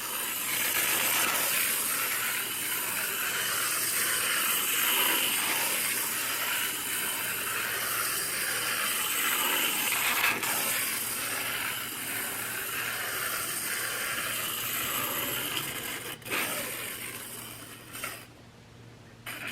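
The clockwork motor of a Tomy wind-up Percy toy engine whirring steadily as it runs along take-along track. It runs down near the end, with a single click shortly before it stops.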